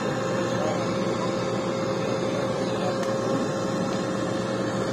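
A vehicle engine running steadily with a constant hum, nothing starting or stopping.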